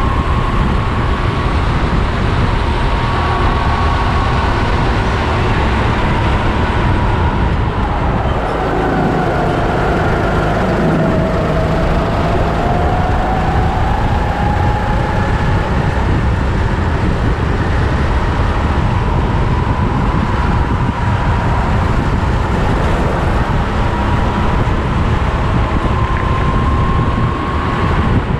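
Sodi rental kart's engine running hard, heard onboard with wind on the microphone. Its pitch sinks from about eight seconds in as the kart slows for a corner, then climbs again as it accelerates out and holds high.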